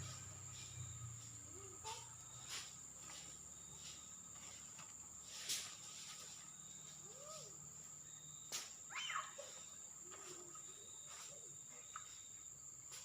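Steady high-pitched drone of insects, with a few faint clicks and knocks and some short, faint chirps.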